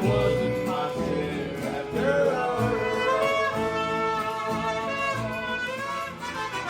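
Background country music with fiddle, guitar and a singing voice.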